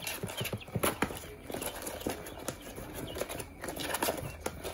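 Guinea fowl keets scrabbling on a cardboard box floor while hands move among them: an irregular run of scratchy taps, clicks and rustles on the cardboard.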